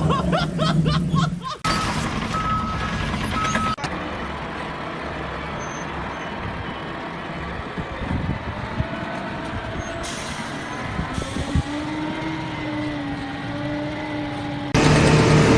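Heavy-vehicle and machinery engine noise across several short clips, with short beeps early on in one of them.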